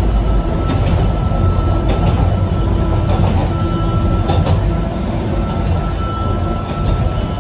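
Interior running noise of a Sangi Railway Hokusei Line narrow-gauge electric car (Mo 275) under way: a steady rumble from the wheels and running gear, with a thin steady high whine and a few faint clicks.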